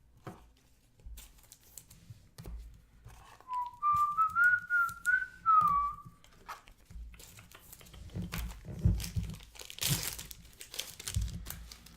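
A person whistling a short tune for about three seconds, one clear pitch line rising and falling, over scattered crinkling, tapping and a brief rustle near the end as cards and packaging are handled.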